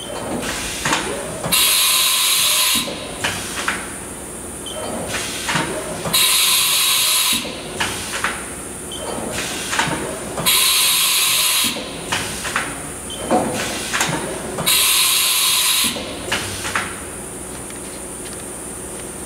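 Haas VF-5 vertical machining center cycling its side-mount tool changer: four sharp hisses of compressed air as the spindle releases and blows off the tool, about four seconds apart, with clicks and clunks of the changer arm between them, over the machine's steady hum.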